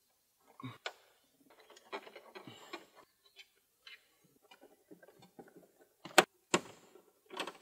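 A 7 mm nut driver working the dash-trim bolts of a Ford F-150: irregular small clicks, ticks and light rattles of metal on bolts and plastic trim, with two sharp clicks about six seconds in.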